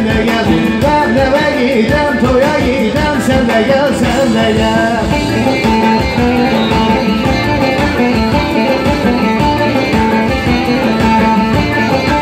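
Loud halay dance music played over a sound system: a plucked string instrument carries the melody over a steady, driving beat.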